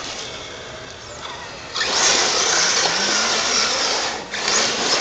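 Electric RC car on a 4S LiPo pack accelerating hard across loose gravel: about two seconds in, a loud, even rush of tyres on gravel with its motor starts, dips briefly near the end and picks up again. The owner says the motor is still cold and not yet giving full power.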